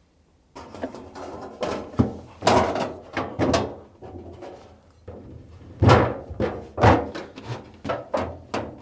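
Plastic freezer evaporator cover being handled and pushed into place: a run of irregular knocks and clatter of plastic against the freezer's plastic liner.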